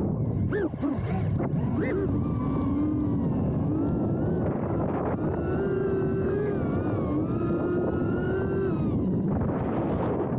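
FPV quadcopter's brushless motors and propellers whining in flight, the pitch sweeping up and down with the throttle, with quick rises in the first two seconds. Heavy wind and prop-wash noise on the microphone of the onboard camera runs under it.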